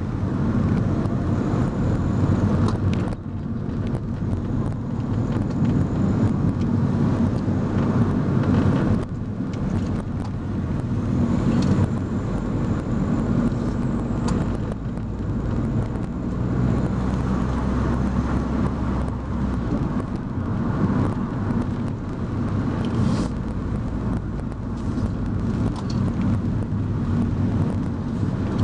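A moving car heard from inside: steady engine hum and road noise, with the engine note shifting up and down as the speed changes and brief drops in loudness about three and nine seconds in.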